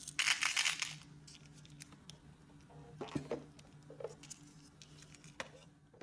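Candy-coated chocolates (M&M's) poured from a hand into a small plastic cup, a quick rattling patter lasting under a second. A few light plastic clicks and knocks follow.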